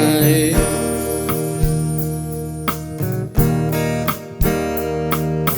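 Live band playing an instrumental passage with no singing: strummed acoustic guitar chords over a steady bass line and regular drum hits.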